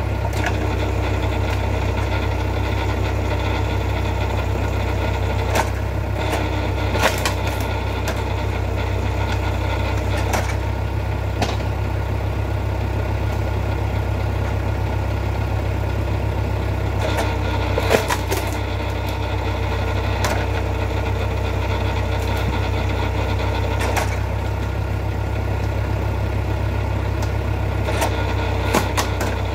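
Engine-driven vertical hydraulic log splitter running steadily while its wedge is driven into a large log round. A higher tone comes and goes as the ram presses. The wood splits with sharp cracks several times, the loudest about eighteen seconds in.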